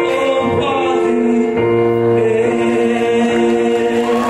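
The closing bars of a song over a PA: singing with backing music, ending on long held notes.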